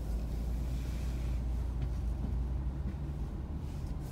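Car idling at a standstill: a steady low rumble with a faint hiss of traffic above it.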